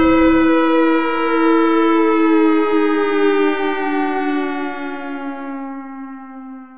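A siren tone, held and sliding slowly down in pitch as it fades away, with a low rumble underneath that stops about half a second in.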